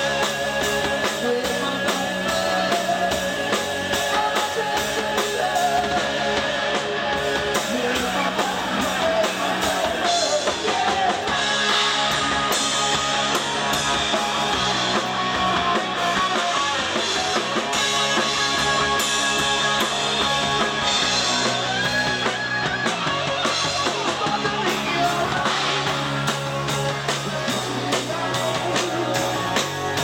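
Rock band playing live: electric guitar, bass guitar and drum kit, with a singer.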